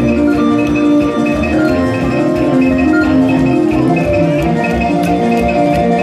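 Music: held melodic tones stepping from note to note over a steady, pulsing low beat.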